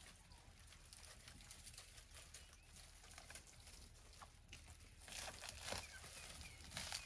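African elephant feeding in a thorny acacia tree: faint crackling and snapping of dry twigs and bark as she strips it. The crackling grows louder about five seconds in.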